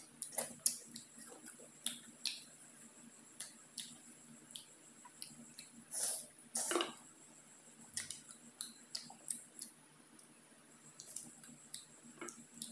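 Close eating sounds of a person eating by hand: wet lip smacks and chewing clicks scattered throughout, with a louder bite and chew of a fried piece about six seconds in.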